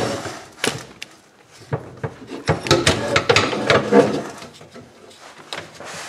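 Irregular knocks, clanks and scrapes of a popup camper's spring-tube and cable lift mechanism being tugged at from underneath the frame, with a cluster of sharp knocks in the middle.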